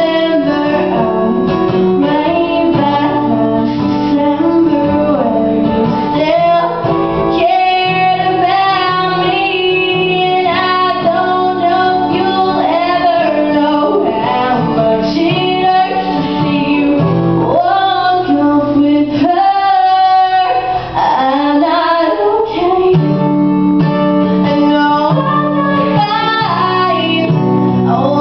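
A woman singing a pop song while playing an acoustic guitar.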